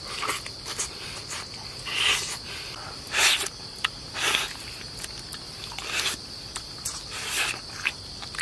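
Insects chirring in a steady high drone, with short wet smacking and slurping sounds every second or so from men eating chicken curry with their fingers.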